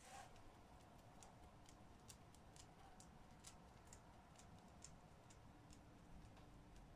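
Near silence with faint, irregular ticks or clicks, a few a second.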